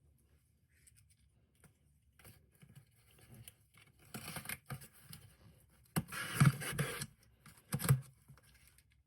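Shipping package being torn open by hand: scratching and ripping of the packaging, with a few tearing strokes, the longest and loudest about six seconds in and a shorter one just before eight seconds.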